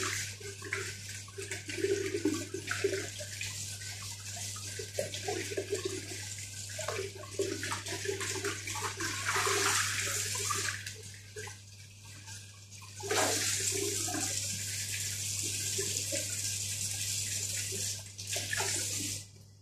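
Kitchen tap running into a stainless steel sink, the stream splashing over hands and then into and over a bowl being rinsed; the pour gets steadier and louder about two-thirds of the way through. The tap is shut off abruptly just before the end.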